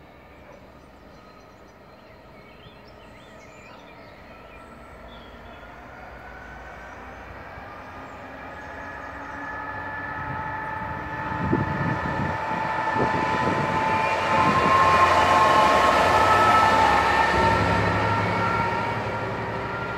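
DB Cargo Class 66 diesel locomotive running light engine, its EMD two-stroke V12 diesel growing steadily louder as it approaches, loudest about three-quarters of the way through as it passes, then fading as it moves away. A few low knocks come from the wheels as it nears.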